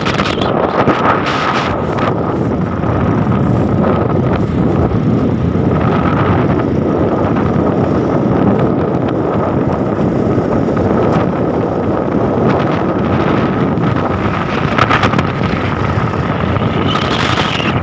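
Wind rushing hard over a phone's microphone while riding along a street on a motorcycle, with road and engine noise underneath and a faint steady whine.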